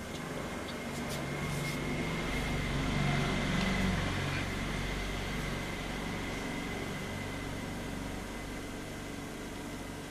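A steady low mechanical hum that grows louder about two to four seconds in, then eases back to a steady level.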